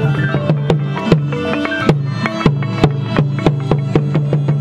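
Khmer pinpeat ensemble music for large shadow-puppet theatre: frequent sharp drum strokes over sustained low tones and a quick melody of struck notes.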